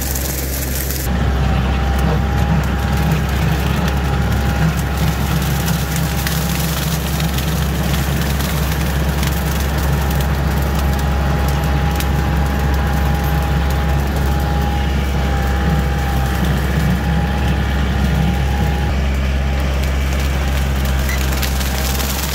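Kioti compact tractor's diesel engine running steadily under load while its bush hog rotary cutter mows brush and ferns, with a thin steady whine over the low engine note. The sound steps up louder about a second in.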